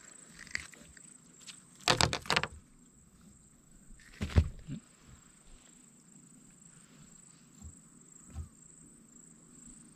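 Knocks and a thump from a caught redfin being unhooked and handled in a kayak: a quick run of sharp knocks about two seconds in, a heavier thump a couple of seconds later, and two small knocks near the end. A faint, steady, high insect drone runs underneath.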